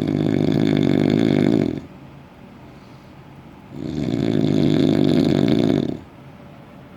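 Loud snoring: two long snores of about two seconds each, about four seconds apart, with quieter breathing in between.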